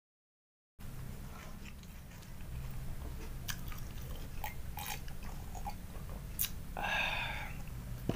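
Close-miked mouth sounds of a man eating and drinking: scattered soft wet clicks of chewing and swallowing over a faint hum. A short, louder breathy sound comes about seven seconds in. The sound starts after a moment of dead silence.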